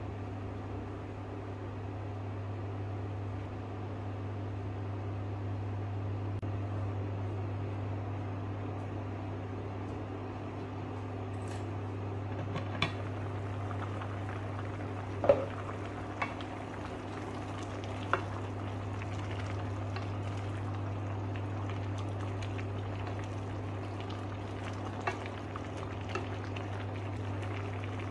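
Vegetable soup bubbling at a boil in a stainless steel pot: a steady simmering hiss over the electric cooktop's low hum. From about halfway through come scattered sharp clicks and pops, the loudest just after the middle.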